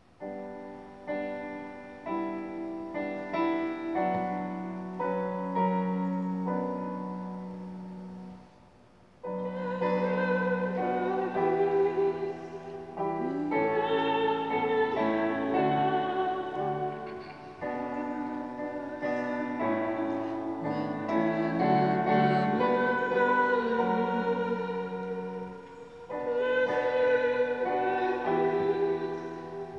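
Piano playing a hymn introduction of struck chords for about eight seconds, then a voice with a wide vibrato starts singing the hymn over the piano accompaniment, with short breaths between phrases.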